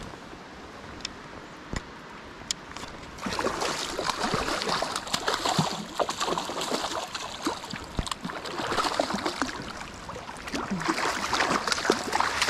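A hooked pink salmon thrashing and splashing at the surface of shallow river water, beginning about three seconds in and going on in uneven, repeated splashes. Before that, only a few faint sharp clicks.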